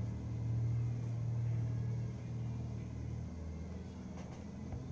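A low, steady rumble that drops in level about three seconds in.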